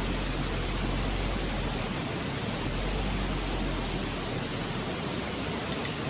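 Petromax HK500 pressure kerosene lantern burning with a steady hiss, with a faint low hum underneath that fades out.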